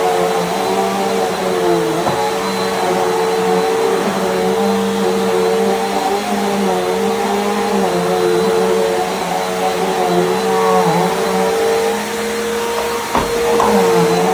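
Bissell PowerGroom bagless upright vacuum running steadily, its motor pitch dipping briefly now and then. A single sharp knock comes about 13 seconds in.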